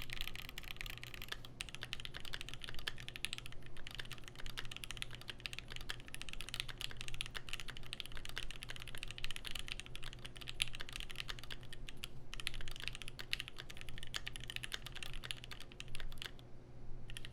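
Fast continuous typing on a Keychron Q1 aluminium-plate mechanical keyboard, fitted with GS2-lubed, filmed Pinoko switches, GMK Olivia Dark keycaps and Poly-Fil foam in the case. There are brief pauses about twelve seconds in and near the end.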